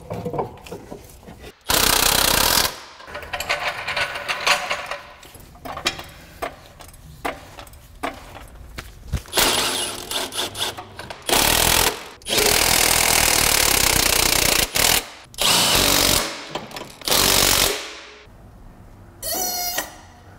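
Impact wrench running in repeated bursts of one to two and a half seconds, with quieter clinks of hand work between them, as bolts are driven home on an engine being mounted in a car. A short rising squeal comes about a second before the end.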